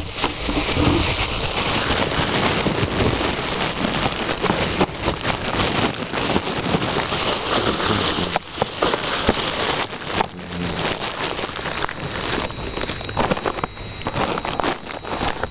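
Heavy rain pouring down during a thunderstorm: a steady, loud hiss full of drop taps.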